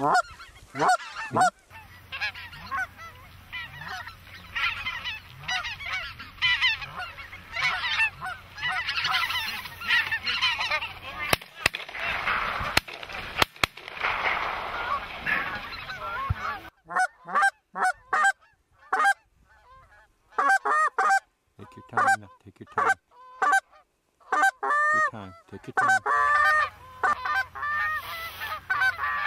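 A large flock of Canada geese honking as they fly in. For the first half the honks overlap in a dense chorus; after that they come thinner and separate, with short silent gaps between them.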